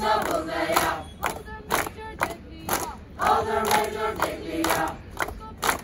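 A large group of cadets singing and shouting a marching song in unison, with sharp beats keeping time about twice a second.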